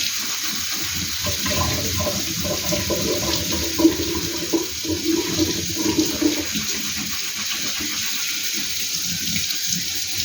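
Kitchen tap running steadily into a sink, with light knocks and clatter underneath.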